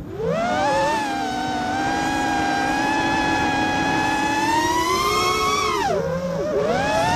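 FPV freestyle quadcopter's brushless motors and propellers whining. They spool up about a quarter second in and hold a steady high pitch, then the pitch drops away near six seconds in as the throttle comes off, and climbs again just before the end.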